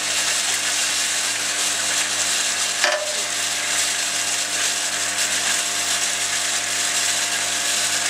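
XL-10B rotary vial filling, stoppering and capping machine running: a steady mechanical clatter over an even machine hum, with one sharper click about three seconds in.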